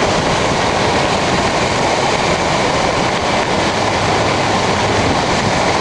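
A river in flood rushing loudly and steadily.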